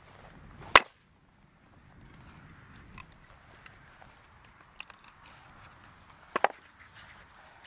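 An axe splitting a log on a wooden chopping block: one sharp, loud crack of the blade striking the wood under a second in. About six seconds in come two quick, quieter knocks of wood on the block.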